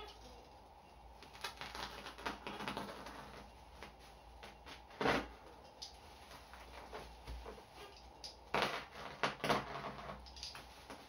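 Bubble wrap and packing tape around a parcel being cut and torn open: crinkling, rustling plastic in irregular bursts, loudest about five seconds in and again around nine seconds.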